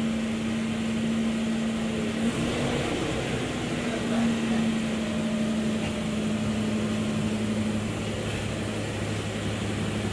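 A car running steadily: an even mechanical hum with a constant low tone, and a second, lower tone that joins about six seconds in.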